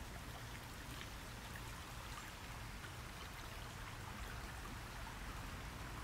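Shallow rocky creek trickling over stones: a soft, steady rush of running water.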